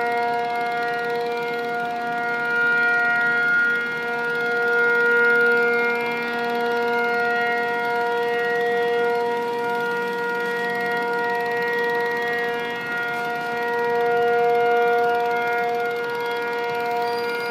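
Civil-defence air-raid siren sounding a long, steady held tone of several notes together, its loudness slowly swelling and fading.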